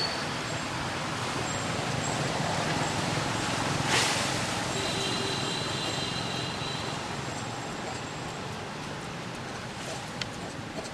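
Steady background noise of distant road traffic, with one sharp click about four seconds in.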